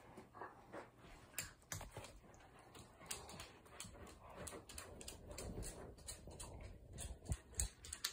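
Faint, irregular clicking and tapping of dogs' claws on a hardwood floor.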